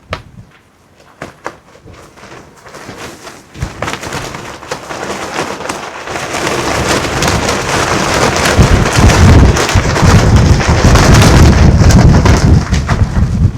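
A gust of wind buffeting the microphone, with a deep rumble. It builds from about four seconds in to a strong, loud gust and drops away sharply near the end.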